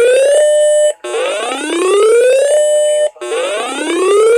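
Electronic emergency alert tone for a severe thunderstorm warning: a siren-like wail that rises in pitch for about a second and a half, holds level briefly, then cuts off and starts again, about every two seconds.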